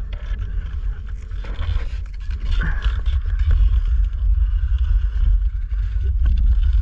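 Wind buffeting the action camera's microphone in a heavy low rumble, over the scraping hiss of gliding fast across smooth black ice under a Kitewing sail, swelling in scrapes a few times.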